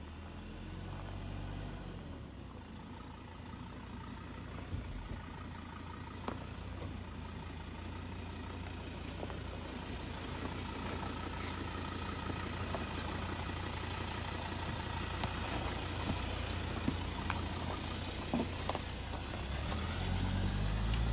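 Ford Ranger PX3 driving slowly over a rough dirt 4x4 track: a steady low engine and drivetrain rumble with occasional light knocks, growing slowly louder.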